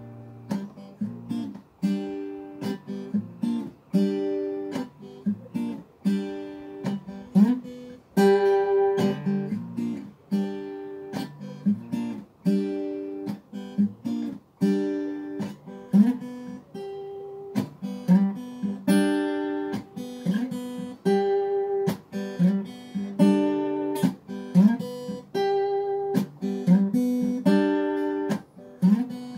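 Solo acoustic guitar played by hand: a steady, rhythmic run of plucked and strummed chords and single notes, a few of them sliding in pitch.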